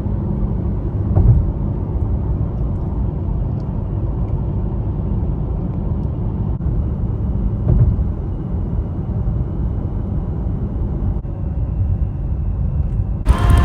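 Steady low road and engine rumble heard inside a moving car, until a sudden change to a brighter sound right at the end.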